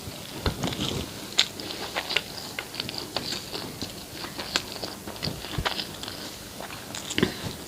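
Close-miked chewing of a meal of rice and egg curry, with irregular soft clicks and smacks of the mouth.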